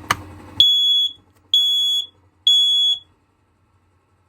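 Smoke alarm under test: a click as the test button is pressed, then three loud, high-pitched beeps of about half a second each, followed by a pause. This is the standard temporal-three alarm pattern.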